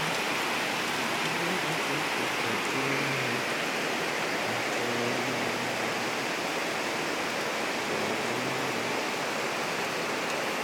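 Steady rainfall, an even hiss.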